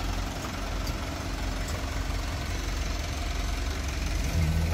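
Isuzu dump truck's diesel engine idling steadily, a little louder near the end.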